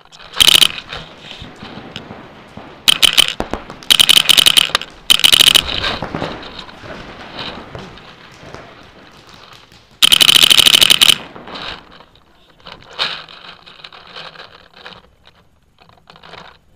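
Paintball marker firing in rapid bursts of many shots a second: about five bursts, the longest lasting about a second. Quieter scattered pops and scraping fill the gaps.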